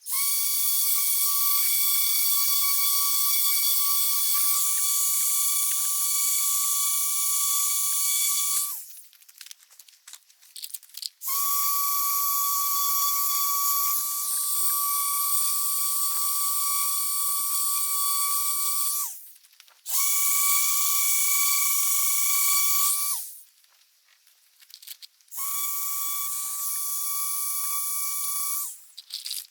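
Electric sander running against the boat's epoxy coating: a steady high whine over a hiss. It runs in four spells, two of about eight seconds and two of three or four, stopping and restarting in between.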